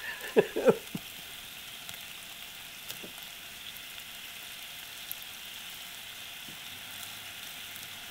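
A knife cutting broccoli on a cutting board, with two sharp cuts about half a second in and a few faint ticks later, over a steady hiss from a lit gas camp-stove burner under a pot.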